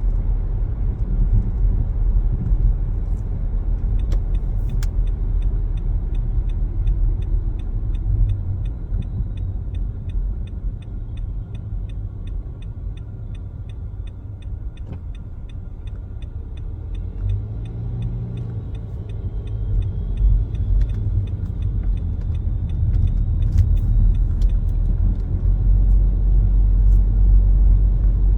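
Car driving, a steady low road and engine rumble that eases in the middle and builds again near the end. Through much of it a turn signal ticks evenly, about two clicks a second, stopping about two-thirds of the way through.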